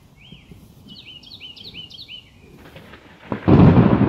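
A bird gives a quick series of short rising chirps. About three seconds in, a sudden loud thunderclap breaks out and keeps rumbling.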